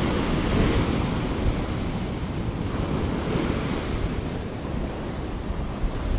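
Small waves breaking and washing up a sandy beach in a steady hiss of surf, with wind rumbling on the microphone.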